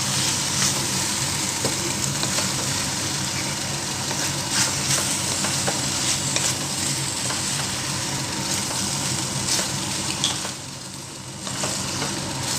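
Boiled pasta and sautéed vegetables sizzling in a hot pan while a spoon stirs them, with scattered scrapes and taps of the spoon against the pan. The sizzle drops for about a second near the end.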